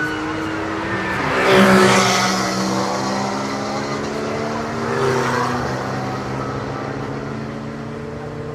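Race cars at full speed passing the trackside, engines running hard. One passes close and loudest about a second and a half in, a second goes by around five seconds, and each engine note drops in pitch as it passes before the sound fades away.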